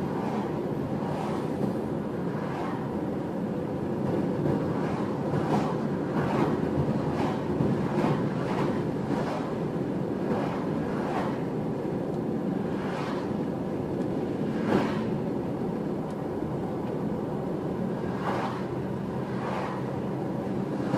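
Road and tyre noise of a car driving along a highway, heard from inside the cabin: a steady rumble with brief whooshes every second or two.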